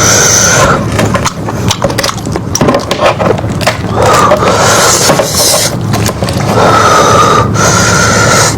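Loud close-miked eating sounds of lamb head meat being chewed and sucked off the bone, with many wet clicks and several longer noisy slurps lasting up to a second or so.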